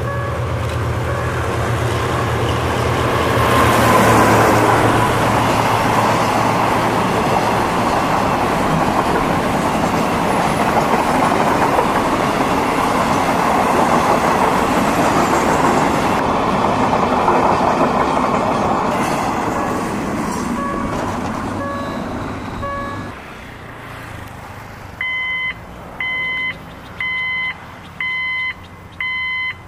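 Diesel-electric locomotive GEK 4024 passes with a steady engine hum, followed by a long train of steel box wagons rolling by with a continuous rumble and clatter of wheels on rail. A level-crossing warning signal rings about once a second at the start and again as the last wagons go by. After the train, an electronic crossing alarm beeps about once a second.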